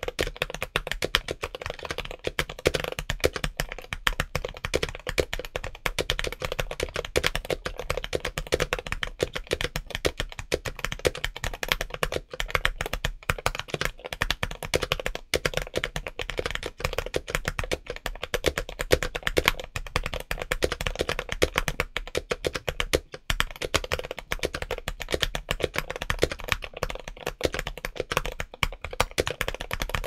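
Steady, fast typing on a modded James Donkey A3 mechanical keyboard with Gateron Orange switches and MT3 Skidata ABS keycaps, the keystrokes giving a deep thock.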